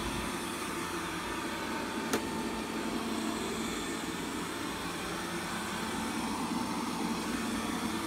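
Robit V7s Pro robot vacuum running on carpet: a steady hum with a faint high whine from its motor and brushes, and a single sharp click about two seconds in.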